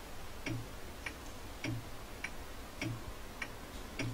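Ticking-clock sound effect: an even tick-tock a little under twice a second, alternating a lighter tick with a deeper tock, filling a quiz pause as thinking-time countdown.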